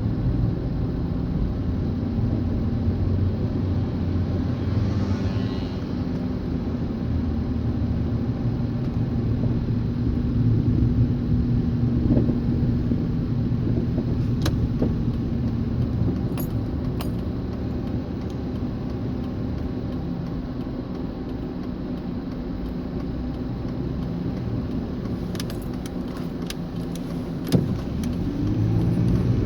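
A car being driven, with steady road and engine noise and scattered short clicks and knocks: the clunking that the car makes when driving.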